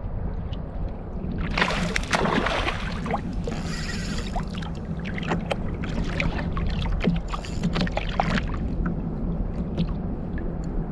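Water slapping and sloshing against a plastic fishing kayak's hull over a steady low rumble, with two short noisy splashes about two and seven seconds in and many small scattered clicks.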